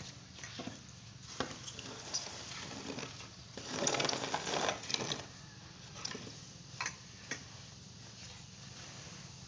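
Paddy rice being raked and pushed across the ground with a wooden rake to spread it for sun-drying: a dry rustling scrape of grain in irregular strokes, loudest about four seconds in, with a few sharp clicks.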